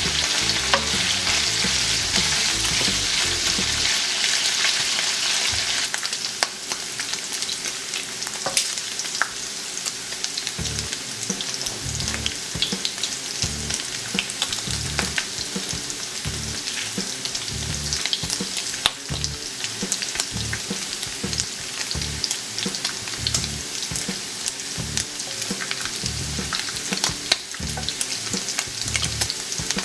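Boiled beef chunks sizzling as they fry in a hot pan, browning, with a utensil now and then knocking and scraping against the pan as they are stirred. The sizzle is loudest for the first six seconds or so, then eases a little.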